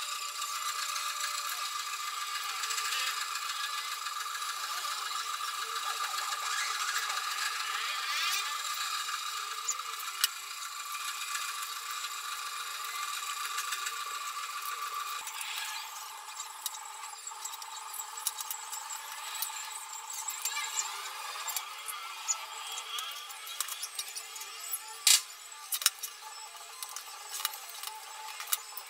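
ASUS laptop case parts being handled during reassembly: light rattling and handling noise over a steady background hum, with several sharp clicks in the last few seconds.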